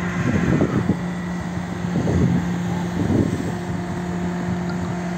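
Steady hum of traffic on a snow-covered highway, with gusts of wind on the microphone in the first three or four seconds.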